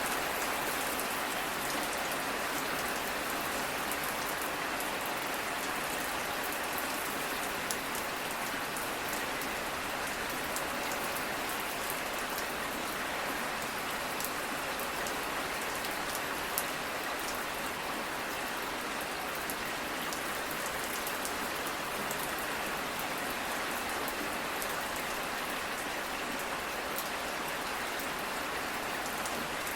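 Steady rain falling: an even hiss made of many fine drop ticks, unchanging throughout, with a couple of slightly louder single drops.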